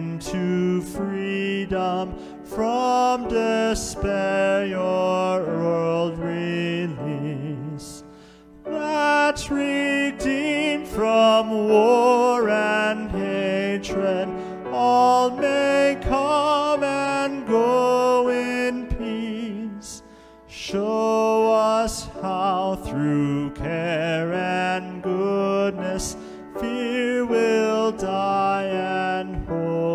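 A hymn sung with grand piano accompaniment. The sung lines come in phrases, with short breaths between them about 8 and 20 seconds in.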